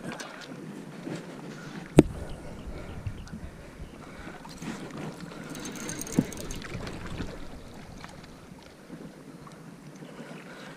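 Rubbing and wind noise on a body-worn camera's microphone as an arm brushes across it, with one sharp knock about two seconds in and a smaller one about six seconds in.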